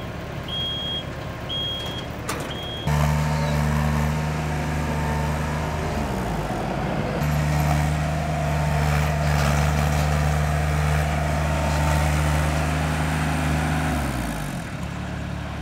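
A backup alarm beeps about once a second on construction machinery. A few seconds in, a heavy equipment diesel engine comes up to speed and runs hard under load, pushing a four-wheel-drive scissor lift stuck in loose gravel. Its pitch dips briefly partway through, then it settles back to a lower, quieter run near the end.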